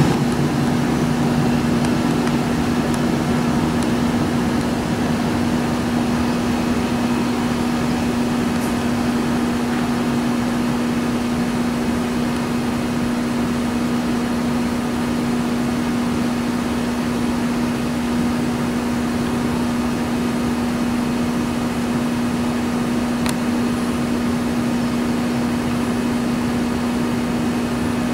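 Steady mechanical hum with one constant low tone over an even rushing noise, unchanging throughout.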